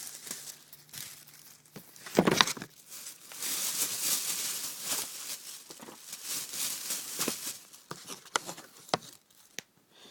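Plastic bags rustling and crinkling while boxed firework cakes are handled, with a dull knock about two seconds in and scattered small clicks.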